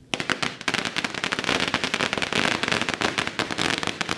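Strings of Lunar New Year firecrackers going off in a rapid, continuous crackle of loud bangs, breaking out suddenly right at the start and carrying on without a pause.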